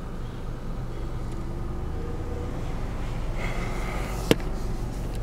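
Steady low rumble of a car's engine and road noise heard inside the moving car. A single sharp click comes about four seconds in.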